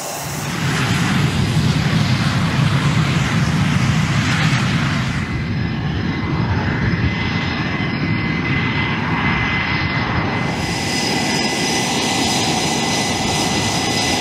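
Jet engine of a Saab Gripen E fighter (a single General Electric F414G turbofan) running while the aircraft taxis, a steady rumble and hiss. About five seconds in the high hiss drops away and a thin high whine stands out.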